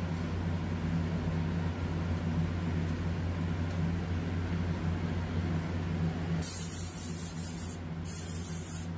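Airbrush being cleaned out between colours: two hissing bursts of spray, the first about a second and a half long and the second just under a second, both near the end, over a steady low hum.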